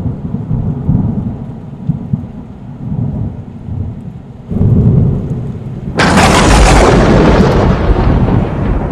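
Thunderstorm sound effect: low rolling thunder rumbles, swelling louder about four and a half seconds in, then heavy rain starting suddenly about six seconds in.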